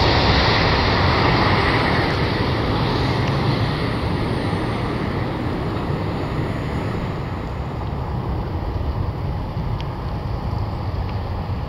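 Boeing 737-800's CFM56-7B jet engines rumbling, fading steadily as the airliner rolls away down the runway after touchdown.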